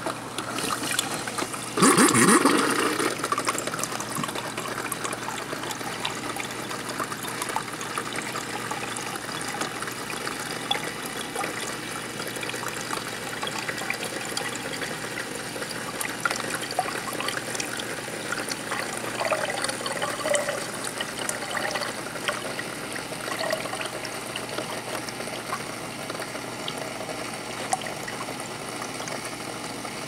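Water from a Whirlpool side-by-side refrigerator's door dispenser running in a steady stream into a glass cup, louder about two seconds in, then even. The dispenser is flushing a newly installed water filter, whose first water comes out cloudy.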